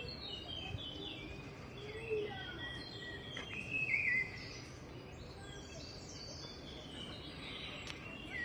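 Several small birds chirping and singing in the trees, many short calls overlapping, with a louder falling call about four seconds in, over a steady low background hum.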